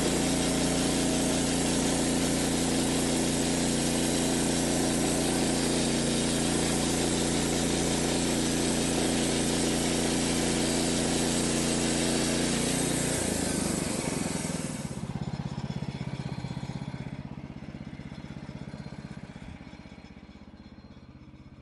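Portable bandsaw sawmill, a Norwood, with its gas engine running under load as the blade saws lengthwise through a log. About 13 seconds in the cut ends, and the engine and blade noise dies away over the following seconds.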